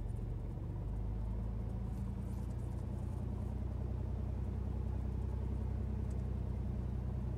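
Cessna Turbo 206's turbocharged six-cylinder Lycoming engine and propeller running steadily at taxi power, heard from inside the cockpit, getting a little louder about a second in.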